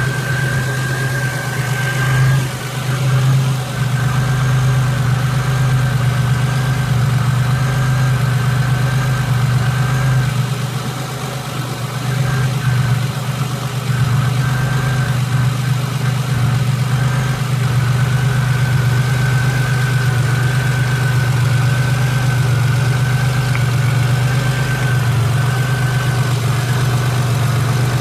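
Car engine idling steadily with a steady high-pitched whine over the low hum; the engine is being checked for valve-lifter noise.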